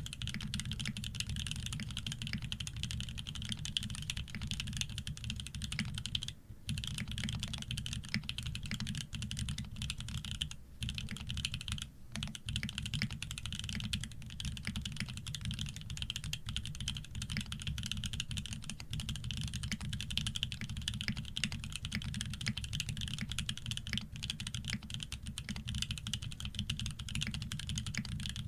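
Continuous fast typing on a Shark60 custom mechanical keyboard with OP Black switches on 150 g springs lubed with Krytox 105, with an aluminium plate, PBT keycaps and no foam. It is a dense stream of keystrokes with short breaks about six and eleven seconds in.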